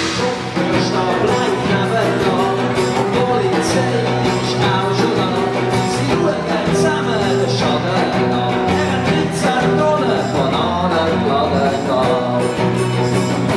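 Live band playing an upbeat children's pop-rock song: sung vocals over electric bass, electric guitar, drums and keyboard.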